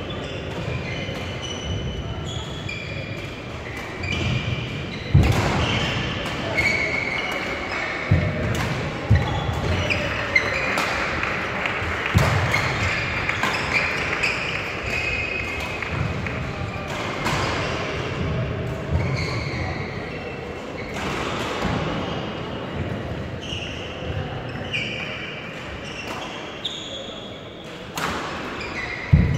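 Badminton play echoing in a large sports hall: sharp racket hits on the shuttlecock, court shoes squeaking on the floor, and thuds of footfalls, with voices from around the hall.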